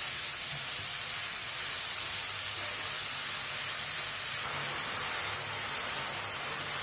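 Grated papaya and sugar sizzling steadily in hot ghee while being stirred in a nonstick pan with a wooden spatula, the sugar melting into syrup.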